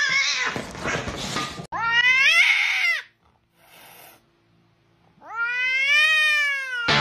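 Domestic cat yowling: three long, drawn-out calls, the last one rising and then falling in pitch near the end.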